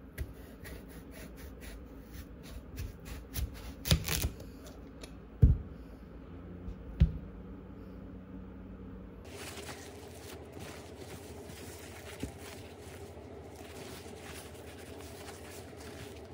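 Kitchen prep: a knife chopping rapidly on a cutting board, with a few heavier knocks. After a cut about nine seconds in, a steady crackling hiss takes over.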